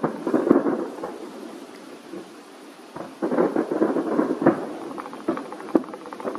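Fireworks display: booming aerial shell bursts with rapid crackling and pops. Sharp bangs stand out near the start, at about three seconds and again near the end, with a quieter lull between one and three seconds.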